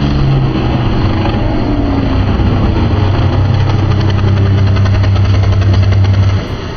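Motocross dirt bike engines revving as riders jump off the ramp: the engine note shifts in pitch at first, then holds a steady high-revving note for about four seconds and cuts off near the end.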